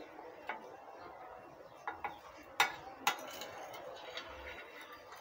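Metal spoon clinking and scraping on a glass tabletop as banknotes are scooped: a handful of sharp, scattered clinks, the two loudest a little past halfway.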